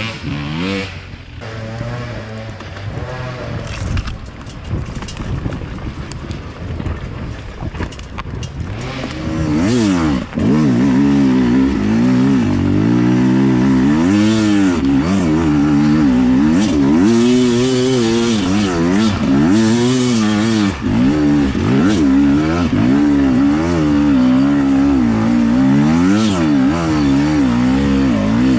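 Beta 300 two-stroke enduro dirt bike engine working up a steep climb: fainter and farther off at first, then loud from on the bike after about ten seconds, its revs rising and falling again and again as the throttle is worked.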